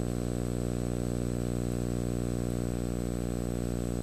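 A steady low hum with many evenly spaced overtones and a faint regular pulse.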